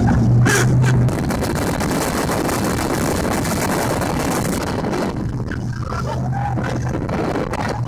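Donzi speedboat's engine running under way over a steady rush of wind and water. The low engine hum eases about a second in and comes back stronger near the end.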